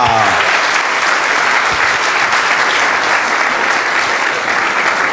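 Audience applauding, a dense and steady wash of clapping.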